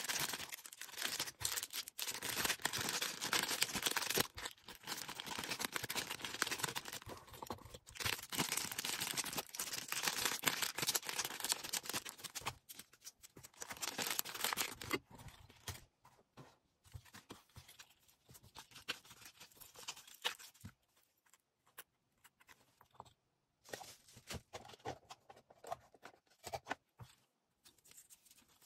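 Hands packing an order: crackling and rustling of packaging material, busy and continuous for about the first half, then only scattered soft rustles and clicks.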